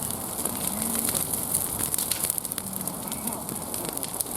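Bonfire crackling, with many sharp pops over a steady hiss.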